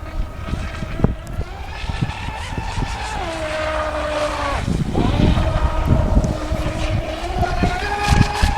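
Brushless electric motor of an RC speedboat on a 4S battery, driving a 12x42 propeller, whining at speed on the water. Its pitch steps down about three seconds in, dips sharply just before the middle, then climbs again near the end, over a low rumble with scattered knocks.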